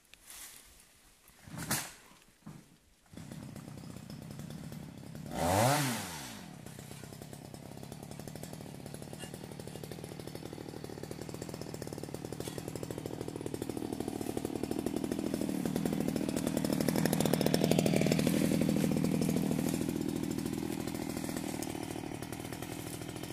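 A few knocks, then a chainsaw starts about three seconds in, revs up and back down once, and runs steadily with a wavering pitch, growing louder for a while past the middle.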